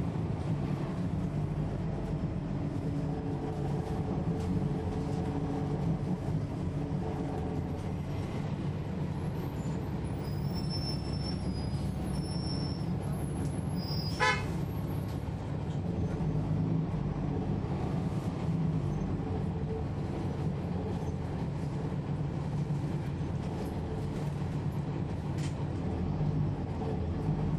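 Inside a 2011 NABI 40-SFW transit bus under way: the Cummins ISL9 diesel runs with a steady drone, and the ZF Ecolife six-speed automatic transmission adds a faint whistle that shifts in pitch in the first few seconds. About halfway through there is one short, sharp tone.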